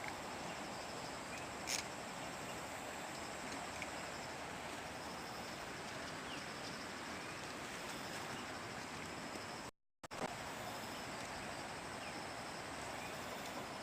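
Outdoor ambience of insects chirping, a steady high pulsing drone over an even hiss. A single sharp click comes about two seconds in, and the sound cuts out briefly near the ten-second mark.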